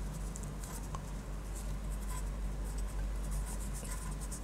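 Pen scratching on paper in short, irregular strokes as someone writes, over a low steady hum.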